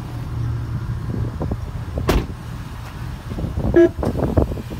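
A car's engine idling with a steady low hum, then a sharp click and a run of knocks and rustling as the driver's door is opened and the driver climbs out. A short electronic beep sounds near the end.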